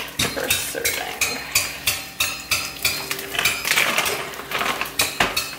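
Light clicks and clatter of food being handled over a frying pan, a quick irregular run of short sharp ticks, two or three a second.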